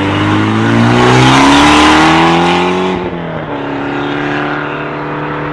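Mitsubishi Lancer Evolution X's turbocharged four-cylinder engine accelerating hard, its revs climbing for about three seconds, then dropping sharply at a gear change and settling into a steadier, lower drone as the car pulls away.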